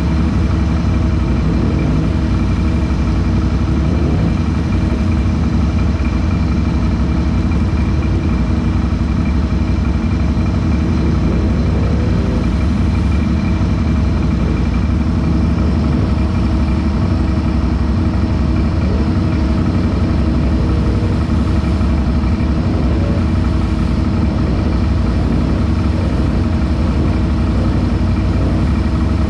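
An ATV engine idling steadily, with an even drone that does not change in pitch or loudness.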